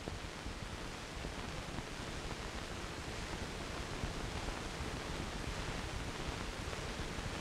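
Steady, even hiss of an old film soundtrack, with no distinct sounds in it.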